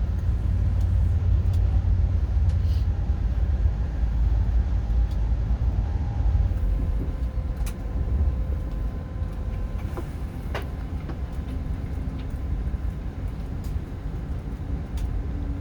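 Amtrak Acela Express train running at speed, a steady low rumble with a few faint clicks.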